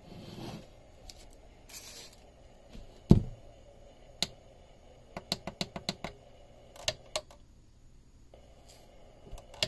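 Plastic push-buttons on a clock radio clicking under a finger: a quick run of about six clicks, then a few single ones, with one louder knock about three seconds in. The auto-scan button is being pressed again and again to step the tuner along, because it does not keep scanning on its own.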